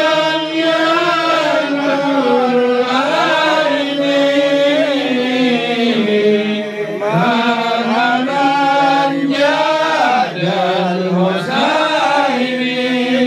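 Vocal chanting: a sung melodic line of long held notes that slide slowly up and down, with short breaks for breath.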